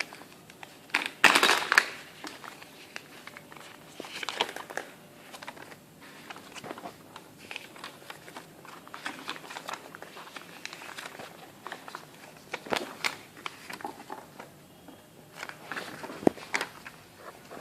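Packaging being handled: plastic parts bags and paper crinkling and rustling in irregular bursts, with small clicks, loudest at about a second and a half in.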